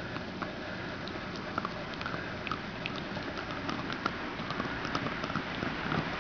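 Dachshund gnawing a white chew bone: irregular clicks and scrapes of teeth on the bone over a steady background hiss.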